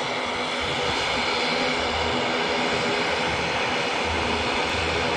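Twin-engine turboprop airliner running on the runway: a steady engine and propeller drone with high whining tones over it.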